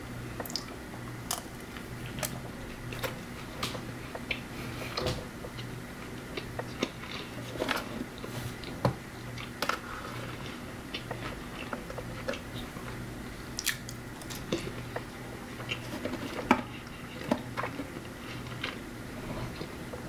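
Close-up eating sounds: a person biting into and chewing a breaded fried chicken finger and crinkle-cut fries, with irregular sharp crunches and mouth clicks every second or so. A steady low hum runs underneath.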